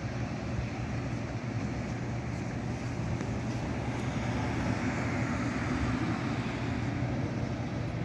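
Steady outdoor traffic noise: an even hiss over a constant low hum, with no distinct events.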